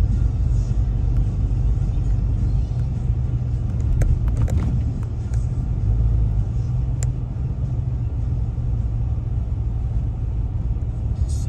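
Steady low rumble of a moving vehicle heard from inside the cab: engine and road noise while driving, with a few faint clicks about four and seven seconds in.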